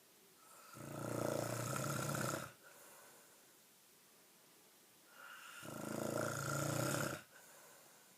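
A sleeping person snoring heavily: two long, loud snores about five seconds apart, each lasting about two seconds, with a softer breath after each.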